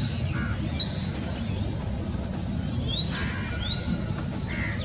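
Bird calls: a series of short, high, rising whistled notes, about five in all and roughly a second or two apart, over a steady low background rumble.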